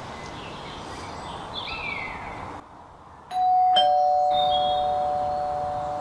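Doorbell chime ringing a ding-dong: a higher note, then a lower one half a second later, both ringing on and slowly fading.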